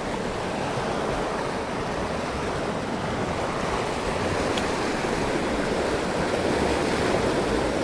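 Steady rush of flowing river current, an even, unbroken water noise.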